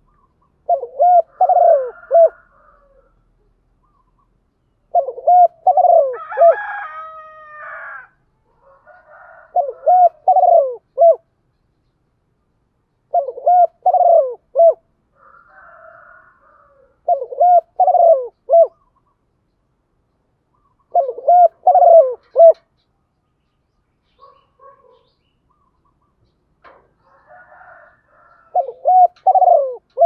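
Spotted dove cooing: short phrases of three or four low coos, repeated about every four seconds, seven times in all. Fainter calls sound between the phrases, and a brief higher call overlaps the second phrase.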